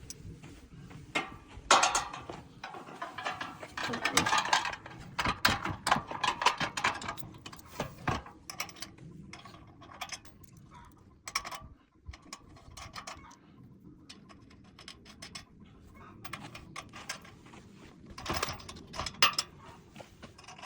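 Metal clinks, clatter and rattles of a steel corner bracket and U-bolt hardware being fitted onto a square tube bumper. The clatter comes in two busy spells, one early and a shorter one near the end.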